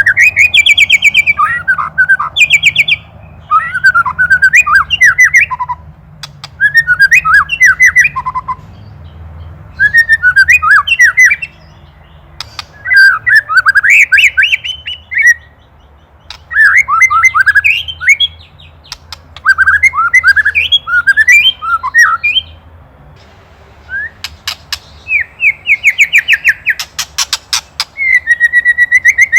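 White-rumped shama (murai batu) singing in short bursts of fast whistled notes mixed with dry rattling clicks, its 'ketrekan' call, repeated about eight times with brief pauses between. Near the end comes a longer run of rapid clicks.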